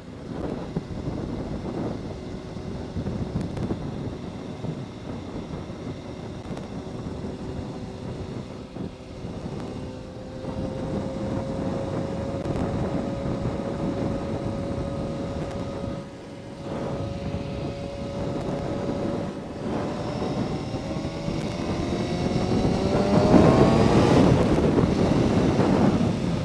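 Yamaha R1's inline-four engine running as the bike rides along, with wind noise on the microphone. The engine note holds steady for a stretch, then rises and grows louder about three-quarters of the way through as the bike accelerates.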